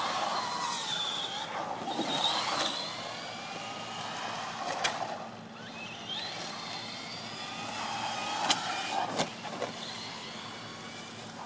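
Remote-control toy car's motor whining, its pitch rising and falling as it speeds up and slows on asphalt, with a few sharp clicks.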